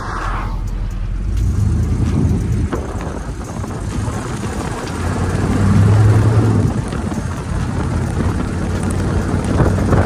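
Old Chevrolet pickup truck heard from inside the cab while driving: a steady low engine and road rumble, the engine note swelling about six seconds in.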